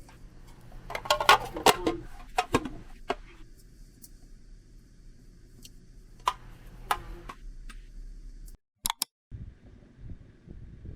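Small hard objects being handled: a flurry of clicks and clinks about a second in, a few more around six to seven seconds in, over a low steady background hum. The sound cuts out briefly near nine seconds.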